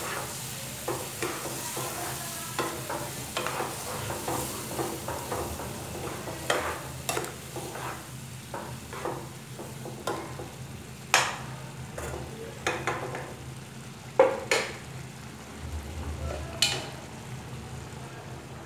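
A spoon stirring a thick, simmering milk-and-cheese dish in a non-stick pan: irregular scrapes and clacks of the spoon against the pan over a steady sizzling hiss, the hiss thinning in the second half.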